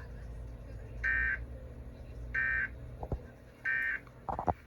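Emergency Alert System end-of-message signal: three identical short bursts of SAME digital data, each a harsh two-tone warble lasting about a third of a second, about a second and a third apart, marking the end of the warning. A few sharp clicks follow near the end, the last of them the loudest sound, over a low steady hum.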